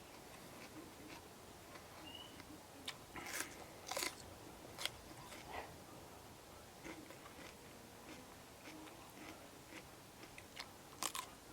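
A person biting and chewing crunchy raw vegetables close to the microphone, with a cluster of sharp crunches a few seconds in and another near the end.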